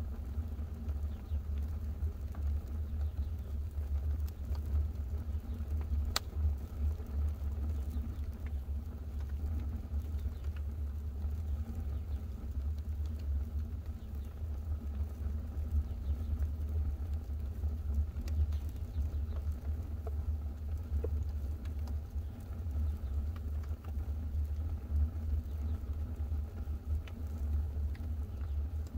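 Fire burning in a homemade wood stove during its burn-in firing: a steady low rumble with an occasional sharp crackle, the clearest about six seconds in.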